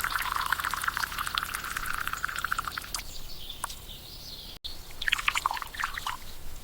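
Liquid being poured or splashing, a dense patter of small splashes in two stretches, the second short one after a sudden cut.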